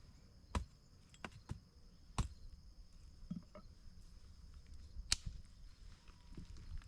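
Chopping: about five sharp knocks at irregular intervals, with a longer gap before the last one.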